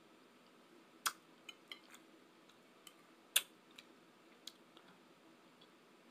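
Handling noise: a few sharp clicks and light taps, the two loudest about a second and three and a half seconds in.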